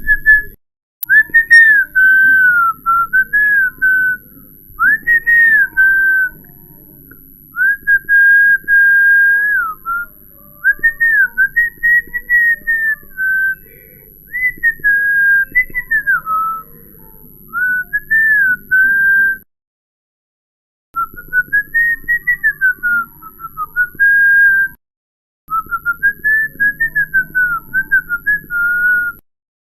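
A person whistling a wandering tune in short phrases, the pitch gliding up and down, with two brief breaks about twenty and twenty-five seconds in.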